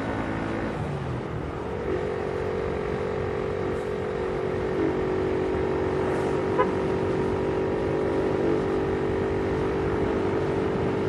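Small motorcycle engine running at a steady cruising speed under road noise. Its pitch rises slightly about two seconds in, then holds steady.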